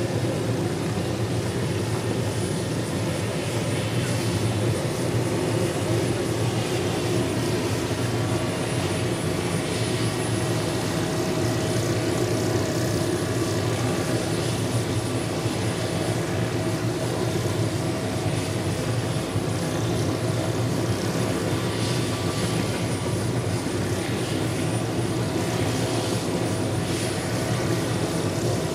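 Turbine helicopters running steadily on the ground: a Hughes OH-6 Loach's turboshaft engine and spinning rotor, with a Bell UH-1H Huey's rotor turning alongside. There is an even, unchanging turbine whine over the rotor noise.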